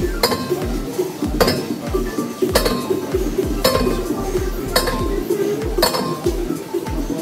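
Background music with a steady beat: a sharp metallic clink lands about once a second over a deep pulsing bass.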